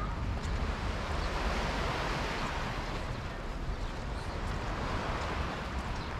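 Steady outdoor wash of noise with a low wind rumble on the microphone, swelling slightly about two seconds in.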